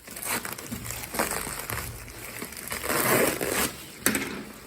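Packaging being crumpled and torn open by hand, in irregular rustling bursts, loudest about three seconds in, with a sharp snap just after four seconds.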